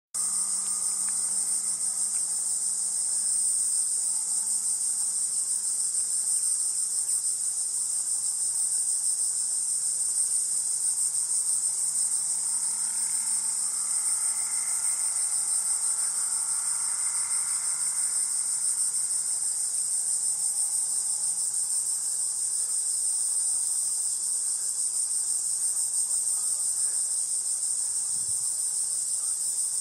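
Steady, high-pitched chorus of insects, one shrill buzz that runs on without a break or change in level.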